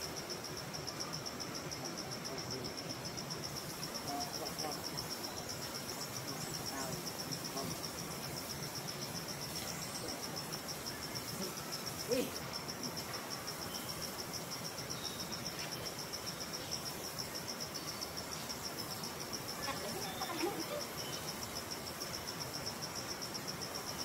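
Insect chorus of crickets or cicadas: a steady, high-pitched, rapidly pulsing trill, with a brief sharper sound about halfway through.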